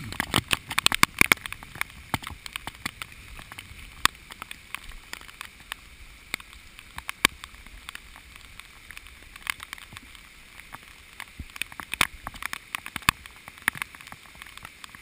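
Heavy rain, with drops striking close by as many irregular sharp ticks over a steady hiss. The ticks come thickest in the first second or so.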